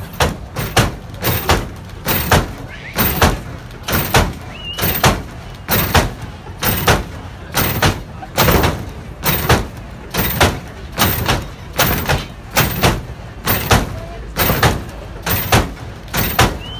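Hydraulic lowrider car hopping its front end over and over. A hard clunk comes each time the hydraulics fire and the car lands, a little more often than once a second, in an even rhythm.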